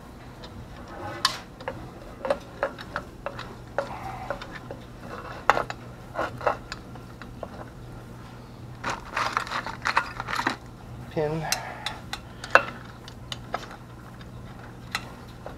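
A 1966 Ford Mustang rear drum-brake shoe and its hardware being handled into place on the steel backing plate: irregular light metallic clicks, clinks and scrapes, with a busier stretch of clattering about nine seconds in.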